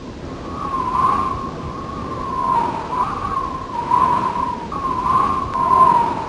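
Strong wind howling: a wavering, whistle-like moan that rises and falls in gusts over a steady rushing noise.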